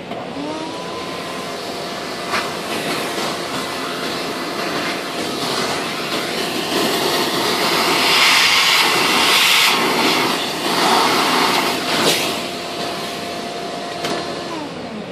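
Vacuum cleaner switched on, its motor whining up to speed, sucking cutting debris out of a model glider's fuselage bay through a crevice nozzle, the hiss of air growing louder midway, then switched off and winding down near the end.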